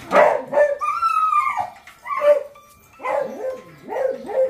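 Beagles barking in short, sharp calls, with one long falling howl about a second in and a quick string of barks near the end.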